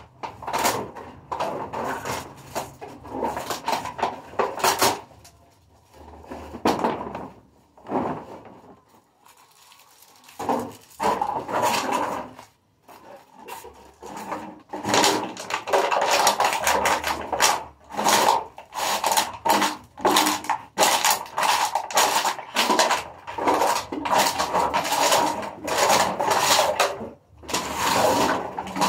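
Plastic drink bottles crackling and clattering as they are handled, stepped on and crushed for recycling. The crackling is patchy at first, drops off for a few seconds around the middle, then runs almost without a break.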